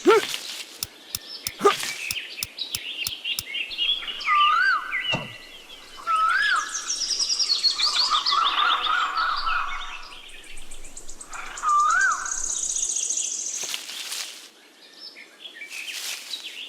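Several birds singing and chirping, with short swooping whistles and fast high trills. A run of light, evenly spaced ticks sounds in the first few seconds, and a few sharp noisy hits come near the end.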